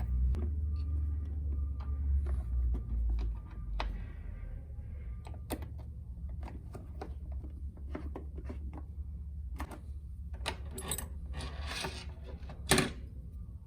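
Screws being driven back into the plastic console cover by hand: irregular small clicks and knocks of parts being handled, a short flurry of clatter, then one louder knock near the end, over a low steady hum.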